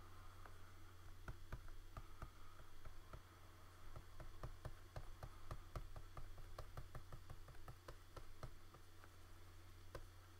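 A run of light clicks and taps, several a second and irregular, from hands working a computer's drawing tools, over a faint steady low hum.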